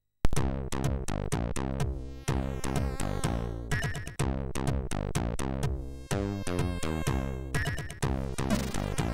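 Commodore 64 chiptune played by its MOS 6581 SID chip, starting suddenly a moment in after a short silence: rapid, evenly spaced drum hits over a stepping bass line.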